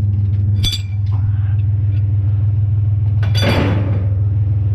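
Truck engine idling steadily with a low hum. A single ringing metal clink comes about a second in, and a louder metal clatter follows about three and a half seconds in.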